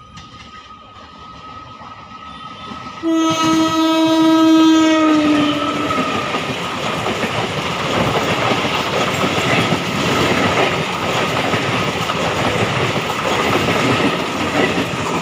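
An Indian Railways EMU local train approaching and sounding its horn in one long blast of about three seconds, its pitch sagging slightly near the end, then its coaches running past close by with a loud, steady rush of wheel and track noise.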